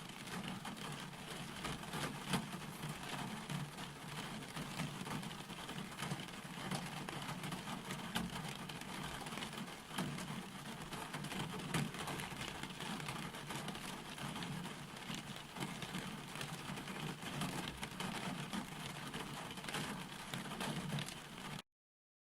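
Steady rain falling, with many separate drop impacts heard over the even hiss of the rain; it cuts off abruptly near the end.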